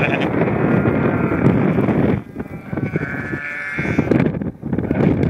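Sheep bleating repeatedly, with a drawn-out wavering bleat about three seconds in.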